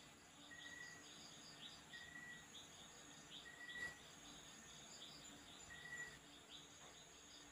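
Near silence, with faint background chirping of insects and birds: a short repeated call every second or so over a rapid pulsing trill, and one faint click about four seconds in.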